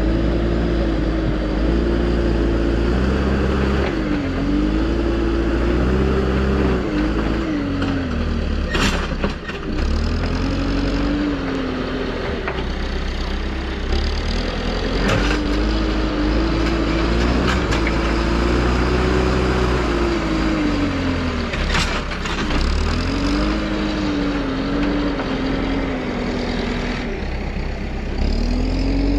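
Backhoe loader's diesel engine running close by, its pitch rising and falling again and again as the digging arm works, with three sharp knocks spread through.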